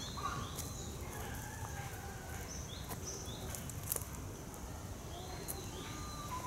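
Japanese bush warbler (uguisu) singing its whistled song, a held note followed by quick arching phrases, a few times over, with other small birds calling and a few sharp ticks.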